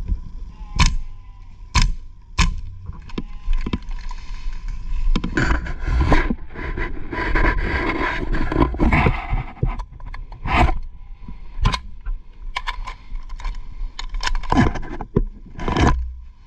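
Scattered sharp clicks and knocks with rustling and scraping of gear, as from an airsoft player moving in kit. A noisier stretch of rustling comes midway, and the clicks bunch up near the end.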